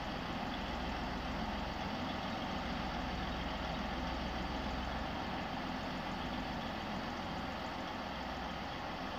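Class 185 diesel multiple unit's Cummins diesel engines running steadily, a low, even engine hum with no rise or fall.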